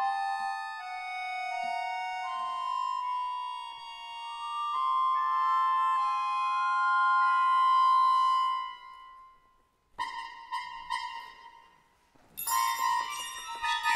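Accordion holding long, overlapping sustained notes in a slowly rising cluster, which fades out about nine seconds in. After a brief pause a metal percussion instrument is struck and rings. Near the end a quick flurry of bright, bell-like strikes follows.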